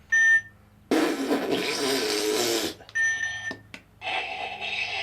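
Electronic beeps from a recordable sound button: one short beep, then a loud raspy noise with a wavering low pitch lasting about two seconds, then a second short beep, followed by another noisy stretch near the end.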